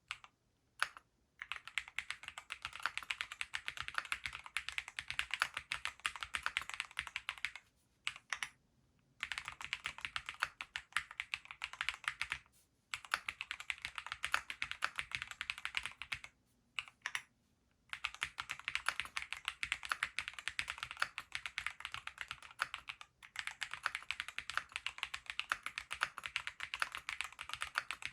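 Typing on a Graystudio Space65 III custom mechanical keyboard with Gateron Pure Berry linear switches: rapid keystrokes in runs of several seconds, broken by short pauses.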